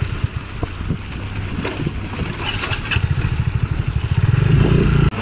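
A small motor vehicle's engine running, with a rapid low pulsing that grows louder about three seconds in.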